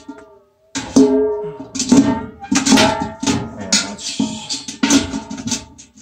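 Music with a singing voice and a light percussive beat.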